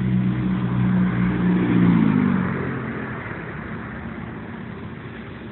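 Vehicle engine running with a steady low hum, revving up about two seconds in, then fading away as it recedes.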